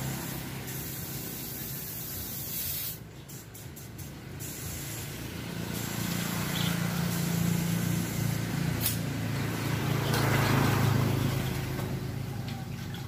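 Pressure washer spraying: a steady hiss of spray over the low hum of the washer's motor. The spray cuts out in several brief breaks about three seconds in, then runs on.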